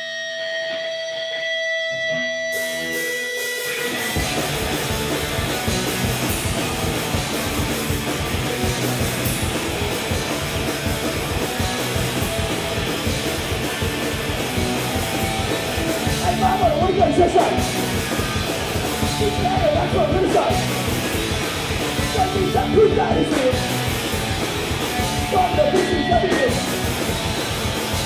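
Live rock band playing: an electric guitar holds a few notes alone, then drums, bass and guitars come in together about two and a half seconds in and play on loudly.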